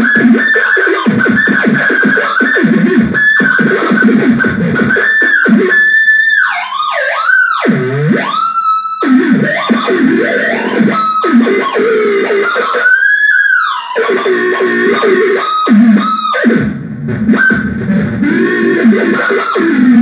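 Handmade analog noise box played by hand, giving distorted electronic tones: a dense buzzing drone at first, then pitches that swoop up and down in long glides, broken by brief cutouts.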